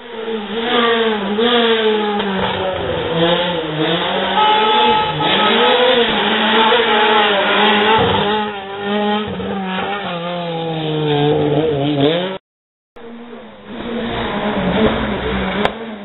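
Rally car engine, a Renault Clio rally hatchback, revved hard as it passes. Its pitch climbs and drops again and again with throttle and gear changes. The sound cuts out briefly about twelve seconds in, then engine noise returns.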